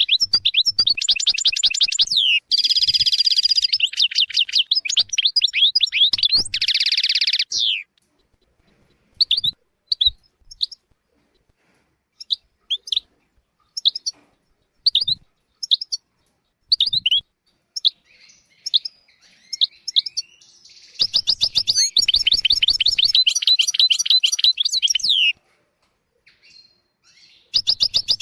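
European goldfinch singing. It opens with rapid twittering trills broken by two harsh buzzy notes, then gives about twelve seconds of scattered single chirps, a dense twittering run after about twenty-one seconds, a short pause, and the song resuming near the end.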